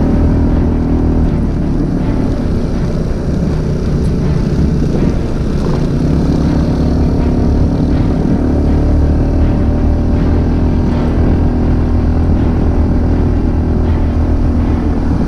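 Motorcycle engine running steadily under way, with a brief dip in its pitch about five seconds in.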